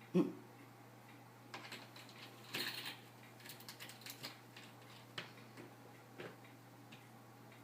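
Pet bird clambering about its cage and toy, its beak and feet making scattered light taps and clicks, with a soft thump just after the start.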